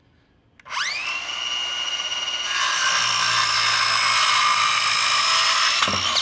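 Bosch cordless circular saw: the motor spins up with a rising whine about a second in, then the blade cuts through a 2x4, the sound growing louder and harsher from about two and a half seconds in. It stops sharply near the end as the cut finishes.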